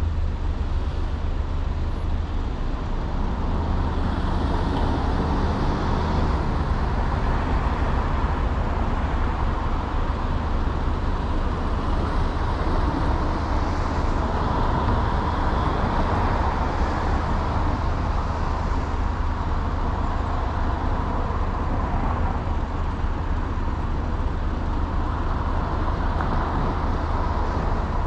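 A car being driven along a road: steady tyre and road noise with a deep, constant low rumble underneath.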